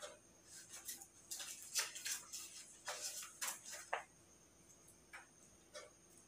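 Pen writing on paper: a run of short, irregular scratching strokes, densest in the middle of the span, over a faint steady hum.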